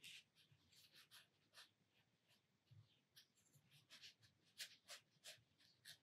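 Faint, short scratchy swishes of a round synthetic watercolour brush stroking and dabbing paint onto cold-pressed cotton watercolour paper, coming in irregular strokes.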